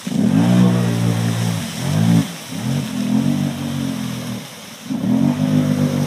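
Snorkel-equipped ATV engine revving hard in three rising surges as the quad churns through deep creek water and mud, the engine note dropping away about two seconds in and again past four seconds, with water splashing under it.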